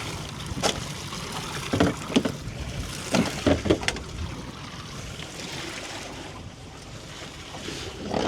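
Wind on the microphone and water around a small fishing boat, with about six sharp knocks and thumps in the first four seconds.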